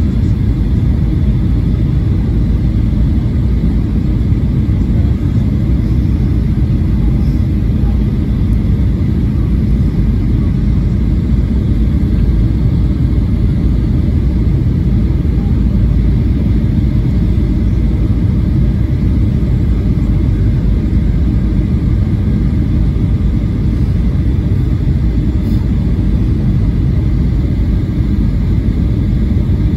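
Steady low rumble of Boeing 737-800 cabin noise, airflow over the fuselage and the engines running, heard from a window seat during the descent to land.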